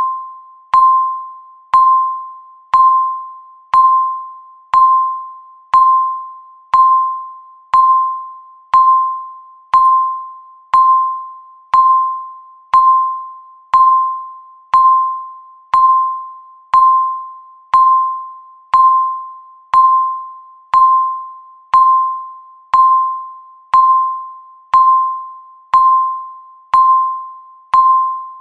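Countdown timer beeping once every second: a single mid-pitched electronic tone that starts sharply and fades out before the next, repeated evenly throughout.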